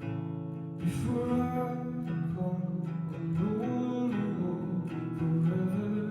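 Live solo song: a man singing over a strummed acoustic guitar, with the voice coming in about a second in.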